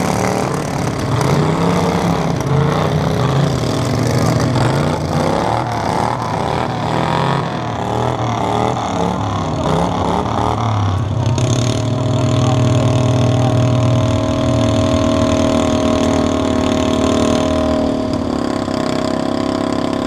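Several riding lawn mower engines fitted with short upright exhaust stacks running loudly, revving up and down for the first ten seconds or so, then holding a steadier speed from about eleven seconds in.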